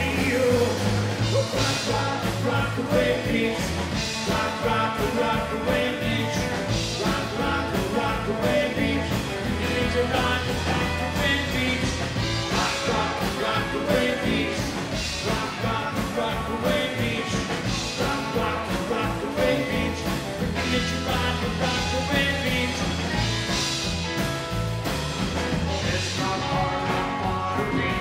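Live rockabilly band playing a song with a steady beat: electric guitar, acoustic guitar, upright double bass and drum kit.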